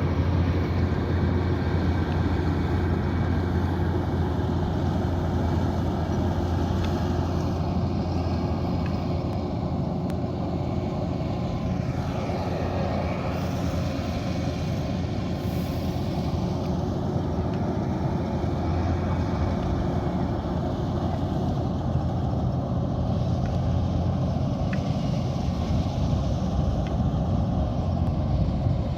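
Kubota DC108X combine harvester running steadily while harvesting rice: a constant engine drone with a low hum, mixed with the noise of its cutting and threshing machinery.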